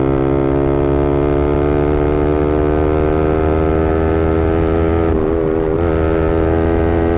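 Yamaha R15M's single-cylinder engine through an SC Project full-system exhaust, held at steady high revs while riding. The pitch creeps slowly upward, with a brief wavering about five seconds in.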